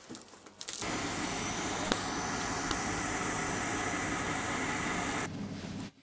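Faint handling clicks, then, after a cut about a second in, the loud steady mechanical rush and hum of a standing passenger train carriage. It stops abruptly near the end.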